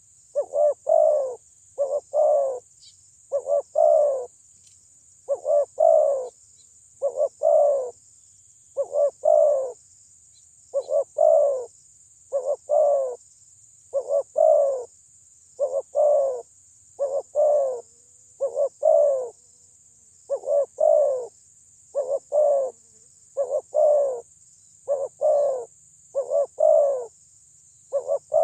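Spotted dove (terkukur) cooing loudly in its repeated song, phrases of two or three coos following about one a second with a brief pause about two-thirds of the way through. It is the loud call used as a lure to provoke rival doves.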